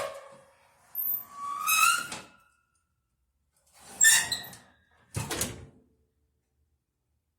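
Oven door squeaking in separate strokes with short silences between them: a squeak rising in pitch about a second in, another around four seconds, and a shorter one just after five seconds.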